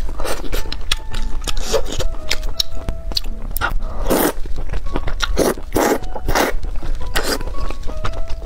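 Close-miked eating of thick noodles in sauce: wet chewing and mouth clicks throughout, with several short slurps in the second half as noodles are drawn into the mouth.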